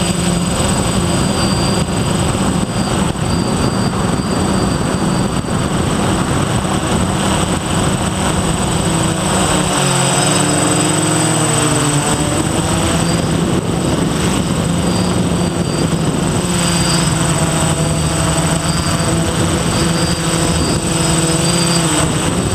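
DJI F450 quadcopter's electric motors and propellers buzzing steadily in flight. The pitch shifts with throttle: it drops briefly about halfway through, then comes back up. A thin, constant high whine sits above the buzz.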